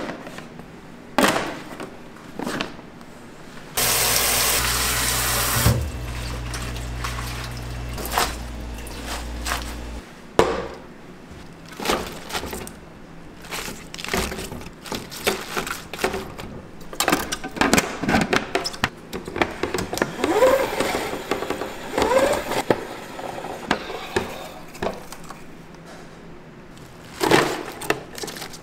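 Kitchen prep handling: clear plastic food tubs knock and clatter, a loud steady rush with a low hum runs for about six seconds from around four seconds in, then shredded iceberg lettuce rustles and crinkles as gloved hands work it in a plastic salad spinner and tub, with frequent small plastic clicks.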